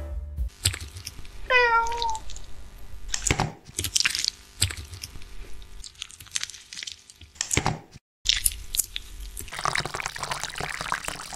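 A cat meows once, about a second and a half in. Then a run of knocks and taps of a metal rod pounding fruit in a glass, and near the end a steady pour of milk into a glass.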